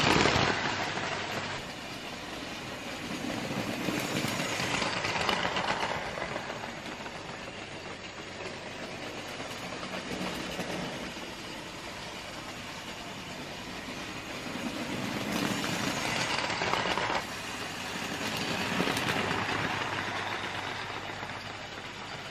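00 gauge model trains running along sectional track, a continuous rolling rumble. It is loudest right at the start as a train passes close by, then rises and falls in slow swells every few seconds as the trains come near and move away.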